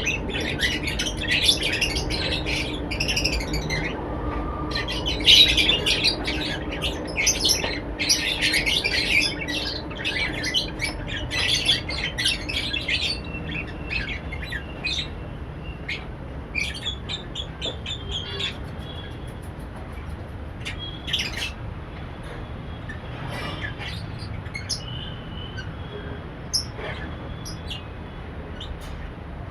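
A room full of caged lovebirds chattering and squawking with many overlapping shrill calls, dense for the first dozen seconds and then thinning to scattered calls.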